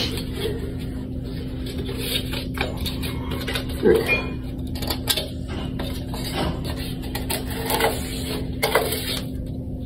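Screw-top powder tub being opened by hand, then a hand digging in it for the scoop: a string of irregular plastic clicks, scrapes and rustles.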